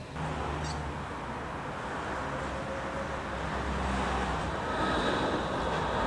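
Steady street traffic noise: a low rumble of cars, slowly growing a little louder.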